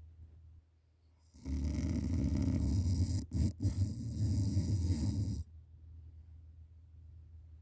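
A sleeping person snoring: one long, loud snore starting about a second and a half in and lasting about four seconds, with two brief breaks near the middle and an abrupt stop, then only a faint low hum.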